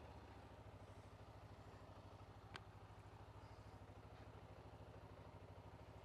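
Motorcycle engine idling steadily just after starting, faint, with a quick even pulse. A single short click about two and a half seconds in.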